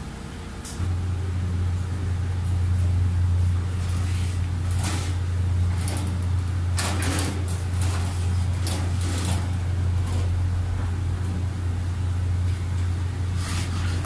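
A steady low hum comes on suddenly about a second in and carries on, the loudest sound throughout. Over it come scattered clacks and scrapes of a stainless steel cart and an overbed table being handled and moved.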